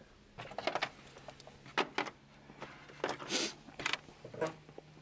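Steel sockets clinking against each other and the plastic of a socket-set tray as a hand sorts through them: a handful of separate short clinks.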